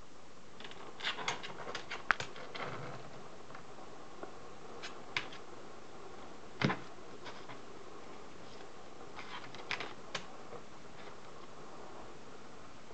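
A dog's paws and claws scratching and tapping on a desktop as it reaches for a toy, in scattered light taps with one louder knock about two-thirds of the way through, over a steady faint hiss.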